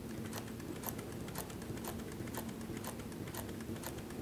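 Pfaff 145 walking foot industrial sewing machine sewing slowly through leather, each stitch a light click, about two a second, over a steady low hum.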